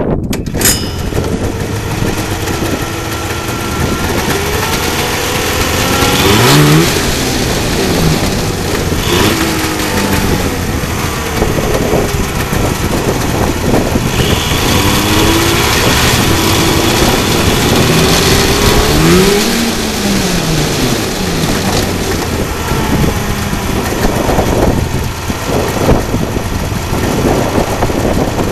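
Yamaha 433cc fan-cooled two-stroke snowmobile engine running, revved up and back down several times, its pitch rising and falling with each blip of the throttle.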